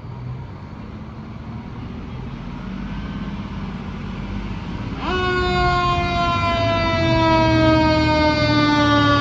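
Denver Fire Department heavy rescue truck approaching, its engine rumble growing louder. About five seconds in, its air horns start a long blast that holds, sagging slightly in pitch.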